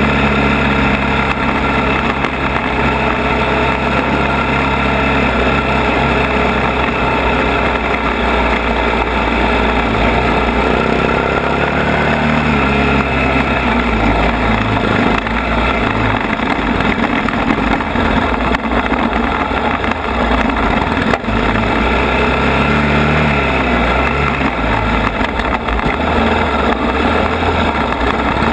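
ATV (quad) engine running while riding a rough trail, its note rising and falling with the throttle.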